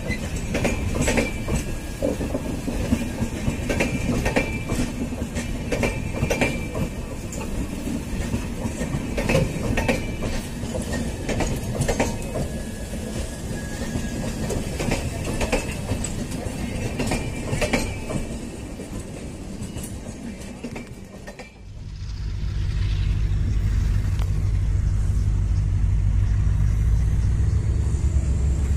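LHB passenger coaches running past close by, their wheels clattering over the rail joints with many sharp knocks. About 22 seconds in the sound cuts to a steady low rumble of a WDP4D diesel locomotive approaching.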